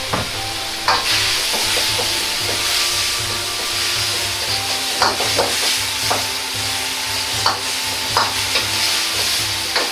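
Pork, wood ear mushroom and vegetables sizzling in a hot iron wok as a metal ladle stirs them, just after a splash of soup and seasoning has gone in. The ladle knocks against the wok several times.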